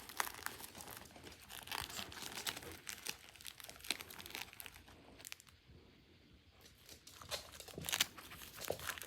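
Plastic snack packaging crinkling and rustling in quick, irregular crackles, loudest a little before the end.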